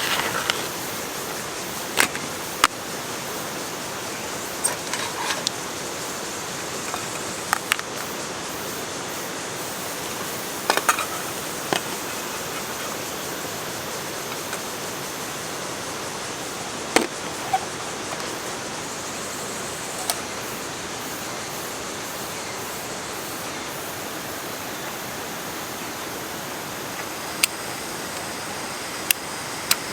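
Mountain stream rushing steadily, with scattered short, sharp clicks and knocks over it.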